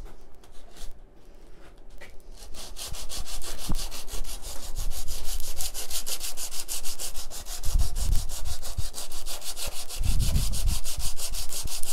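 120-grit sandpaper rubbed back and forth by hand across the aluminium face of a Honda S2000 oil pickup, flatting it for bonding: a rhythmic scratchy rasp of quick, even strokes that sets in a couple of seconds in, with a few dull low thumps in the second half.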